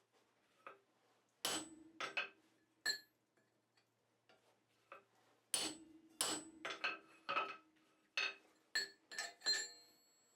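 Hand hammer blows on steel at the anvil during forging, each with a short metallic ring. First a few blows in quick succession, then a pause, then a longer run of about eight irregular blows.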